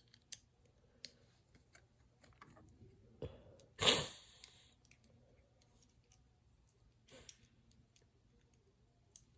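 Small plastic toy parts being handled and fitted together by hand: scattered light clicks, with a louder, brief rustling burst about four seconds in and a smaller one near seven seconds.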